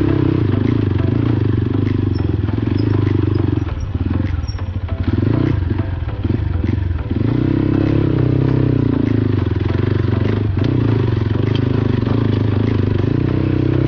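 Motorcycle engine running under way, its note shifting in pitch. For a few seconds around the middle it drops and goes choppy, then picks up again.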